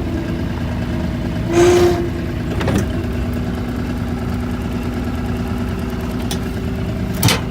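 Skid steer loader engine running at a steady speed, with a short burst of noise about one and a half seconds in and a sharp knock near the end.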